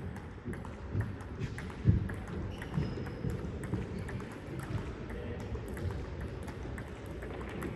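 Table tennis ball clicking off paddles and the table in irregular knocks, with the sharpest hit about two seconds in, over a steady low hall noise.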